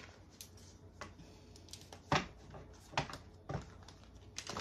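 Tarot cards being handled and set down on a glass-topped table, giving about four light taps and slaps spread over a few seconds.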